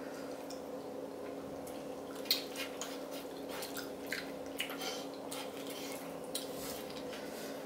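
Faint wet eating sounds of noodles and rice cakes being slurped and chewed, with scattered small clicks and ticks of wooden chopsticks, over a steady low hum.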